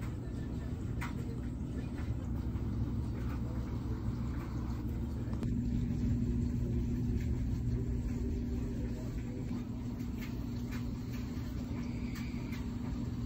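A steady low rumble with a faint constant hum, at an even level throughout.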